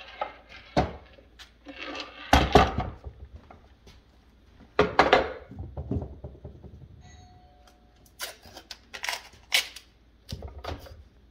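Irregular knocks, scrapes and rustles of a wooden cabinet drawer and its drawer front being moved and handled on a paper-covered counter, loudest about two and a half seconds in and again near five seconds.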